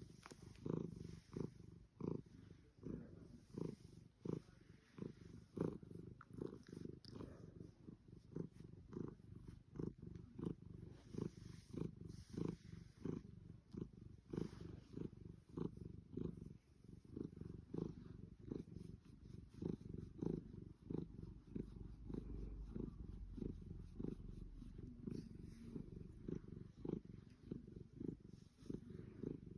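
Savannah cat purring while being stroked, a low rumbling purr that swells and fades in an even rhythm, about two pulses a second.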